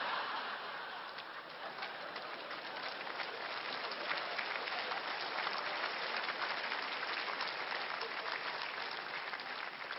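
A large audience applauding steadily, the clapping thickening a little after the first couple of seconds.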